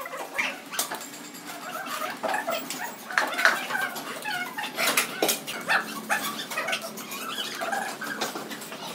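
Many short, high-pitched animal calls, mixed with scattered light clicks and taps from hand tile work.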